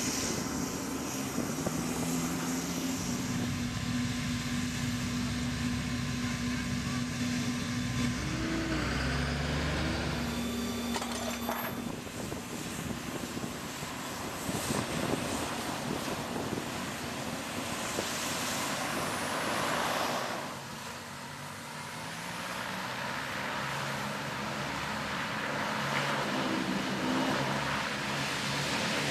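Landing Craft Air Cushion (LCAC) hovercraft running their gas turbine engines, lift fans and propellers: a steady engine tone over a rush of air, dipping briefly about two-thirds of the way through.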